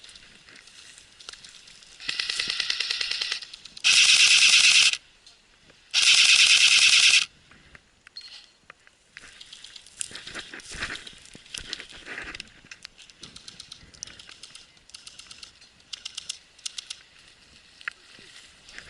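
Airsoft guns firing on full auto: a shorter, quieter burst, then two loud bursts of about a second each with a pause between. Scattered fainter clicks and pops follow.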